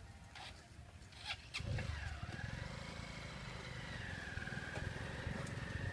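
A few light clicks, then about a second and a half in a motor vehicle engine comes in close by and keeps running: a steady low rumble with a high, slightly wavering whine over it.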